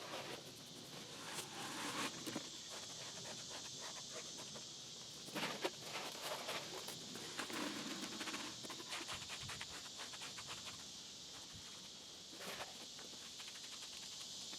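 Faint, scattered scrapes, taps and shuffling from hands-on work, over a steady high hiss of insects.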